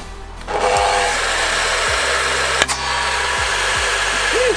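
Table saw motor starting up with a brief whine, then running steadily; a single sharp crack about two and a half seconds in as the saw blade flings a pointed wooden projectile.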